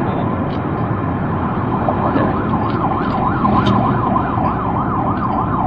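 Emergency vehicle siren sounding in a fast yelp, its pitch swinging up and down about three times a second; it comes in about two seconds in over a steady hum of street traffic.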